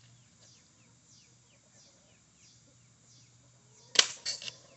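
A staple gun fires once about four seconds in, driving a staple through wire mesh into a wooden frame with a sharp snap. Two lighter clacks follow within half a second.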